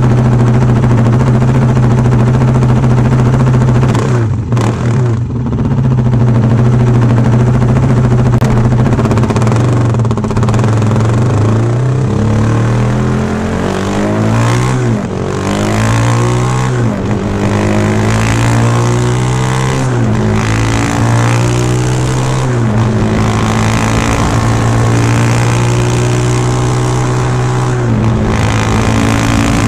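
KTM Duke 390's single-cylinder engine running through a Remus S-Flow slip-on exhaust with its dB killer fitted, riding on the road. It runs steadily at first, then rises and falls in pitch several times in the middle as it accelerates and shifts up through the gears, then settles to a steady cruise.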